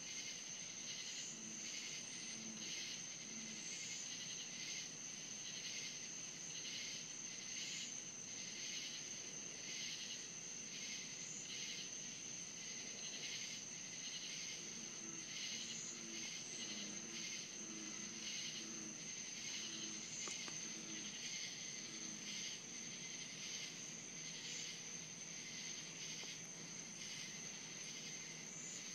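Night insect chorus of crickets and katydids: a steady, unbroken high-pitched trill, with a rhythmic pulsing chirp repeating beneath it.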